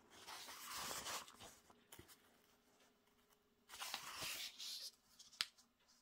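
Comic book pages being turned by hand: two soft paper rustles a few seconds apart, then a short tap.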